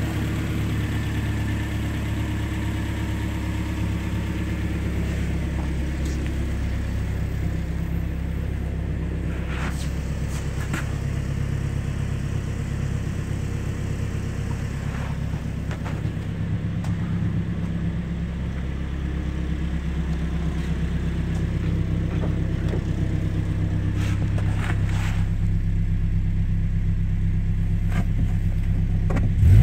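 A 1997 Toyota Tacoma's 2.4-litre four-cylinder engine idling steadily, with a few faint clicks.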